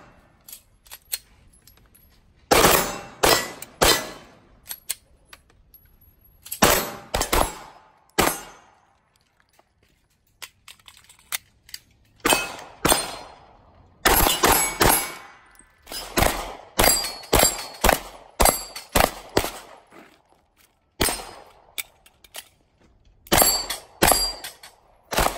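Pistol shots fired in quick strings of two to several, with pauses of a second or more between strings, each shot ringing out briefly. Fainter clicks sound in some of the gaps.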